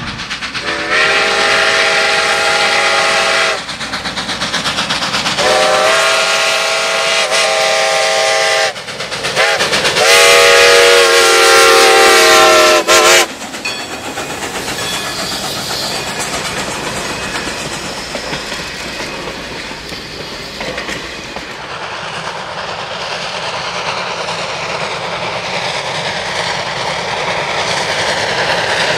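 Steam locomotive No. 90 sounding its whistle in three long blasts, the last the loudest, wavering in pitch. Its passenger cars then roll steadily past with a clickety-clack of wheels on rail joints.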